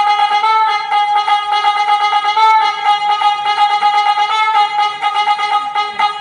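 Music played over a sound system: a single bright, brass-like lead instrument holding one high note, with short ornamental turns and no bass underneath.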